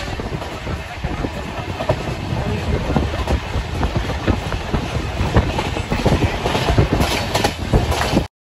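Passenger train running along the track, heard from inside the coach: a steady rumble with wheels clattering over the rails in many irregular clacks. It cuts off suddenly near the end.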